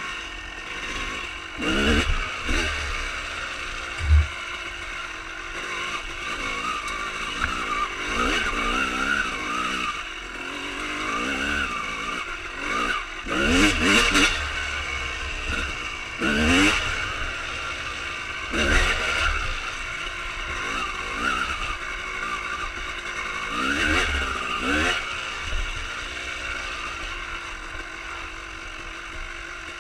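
1995 Honda CR250R's single-cylinder two-stroke engine with a full Pro Circuit exhaust, revving up hard and falling back off the throttle about half a dozen times while riding, with wind on the microphone.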